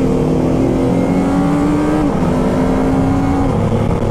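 Stock Kawasaki Ninja ZX-25R's 250 cc inline-four running on its factory exhaust while being ridden, holding a steady note that eases down slightly about halfway through and again near the end, over wind rush.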